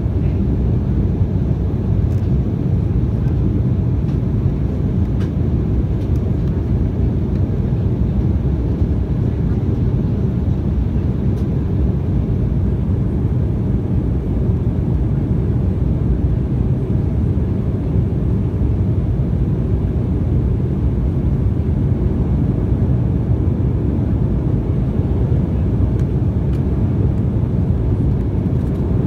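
Steady cabin noise of an Embraer 195 airliner under way: a loud, even rumble of its turbofan engines and airflow, with no rise or fall in pitch.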